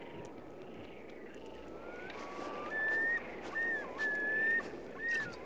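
Steady wind, with a run of high whistled notes over it in the second half: held tones that bend up or down at their ends, the loudest a few seconds in.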